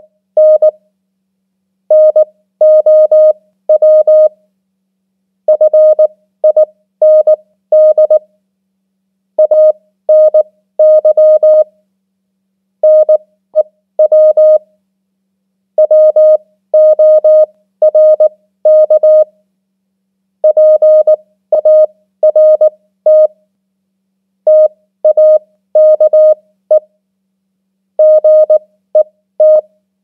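Morse code (CW) practice tone sent at 18 words per minute: a single steady beep keyed in quick dots and dashes, with a pause of about a second between words. It spells out common English words in turn: 'now', 'find', 'any', 'new', 'work', 'part', 'take', 'get'.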